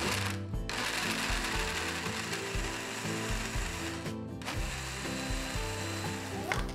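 Countertop blender running, puréeing cooked sweet potato with milk into a smooth drink. It cuts out briefly twice, about half a second in and about four seconds in, and starts again each time.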